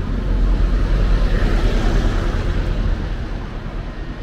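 A large coach bus passing close by: its diesel engine's deep rumble and tyre noise, loudest around the middle, then dropping off as it moves away.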